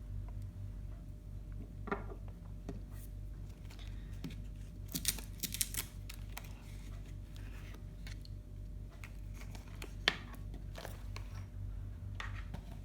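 Hand tools and their wrapping being handled: scattered faint clicks and rustles, a small cluster about five seconds in and a sharp click near ten seconds, over a steady low hum.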